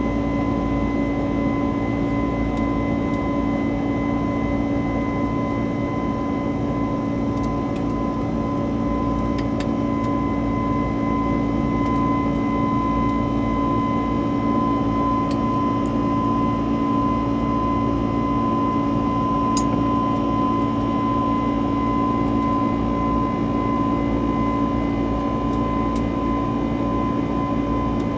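Steady drone inside the cabin of an Airbus A321-200, a low rumble with a constant whine over it. A few faint clicks.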